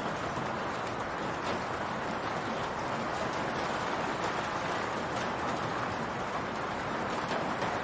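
Steady rain falling on a roof: a continuous, even hiss with a few faint individual drops standing out now and then.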